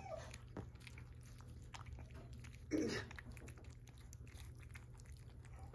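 Miniature schnauzer puppies chewing dry kibble, with many small irregular clicks and crunches of food and plate. One brief louder sound comes about three seconds in.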